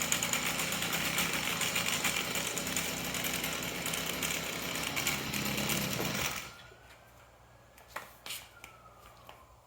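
Stihl FS38 string trimmer's small two-stroke engine running steadily, then shut off about six seconds in, leaving a few faint clicks.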